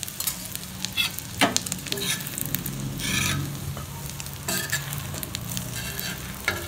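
Egg omelette sizzling in oil on a flat griddle (tawa) over a low flame, its second side frying after the flip. A metal spatula scrapes and taps against the pan every second or so.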